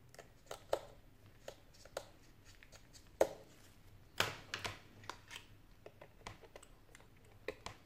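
Scattered light clicks and taps from handling an opened iPhone 6 and its display assembly, which is closed down onto the phone's frame, with a cluster of sharper clicks just after four seconds in.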